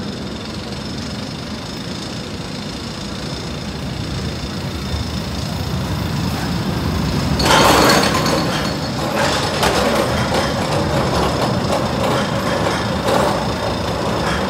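Steel roller coaster train running along its track: a rumble that builds as it approaches, turns into a sudden loud rush of wheels on steel as the train passes close about halfway through, then goes on as a rattling clatter as it moves away.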